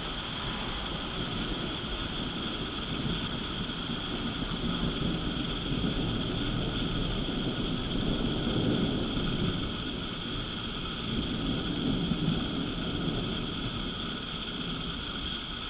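Distant thunder rolling: a low rumble that swells over several seconds, peaks twice, then fades. A steady high hiss runs throughout.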